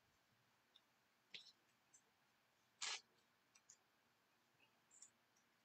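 Near silence broken by a few faint clicks and rustles of baseball trading cards being handled, the loudest a short brush about three seconds in.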